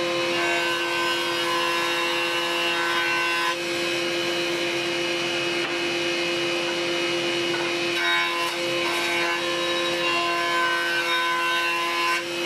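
Warrior jointer running with a steady pitched whine while ash strips are fed across its cutterhead. The cutting noise over the whine changes about three and a half seconds in and again about eight seconds in, as the passes change.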